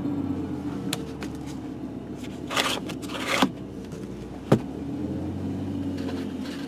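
BMW 325xi's 2.5-litre inline-six idling on a cold start with a steady hum whose speed slowly sags and rises again, an unsteady idle from an engine that will not stay running, for reasons the owner is unsure of. Scraping rustles come about two and a half to three and a half seconds in, then a sharp click.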